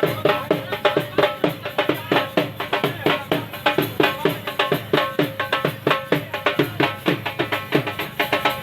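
Music driven by a fast hand-drum rhythm, with deep strokes whose pitch slides down.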